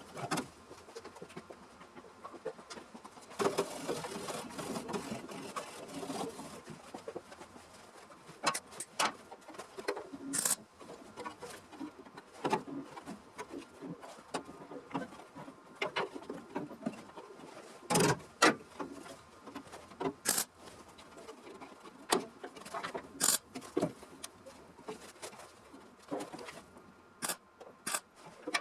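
Hand work on car body metal: scattered sharp clicks and taps, with a stretch of rubbing or scraping a few seconds in.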